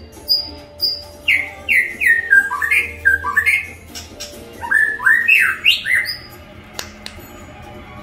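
Shama singing: a few short high whistled notes, then two runs of loud whistles that each slide sharply downward in pitch, with a short pause between the runs.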